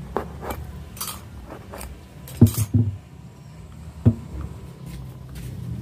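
Handling noise from working on a 12-inch subwoofer's cone and voice-coil assembly by hand: scattered light clicks and clinks, with a cluster of dull thumps about two and a half seconds in and another about four seconds in, over a low steady hum.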